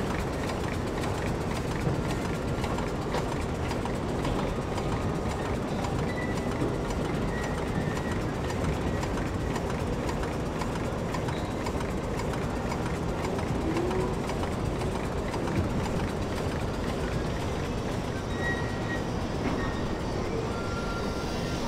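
1929 Sentinel DG8 steam waggon's underfloor steam engine running steadily, with escaping steam hissing around it.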